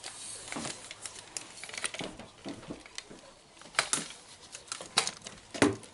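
Scattered light clicks and taps at uneven intervals, a few of them sharper, as small objects on a desk are moved and handled.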